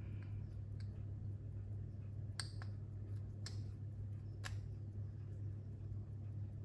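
A few small, sharp clicks about a second apart from a vintage wristwatch and small tools being handled on a bench, over a steady low hum.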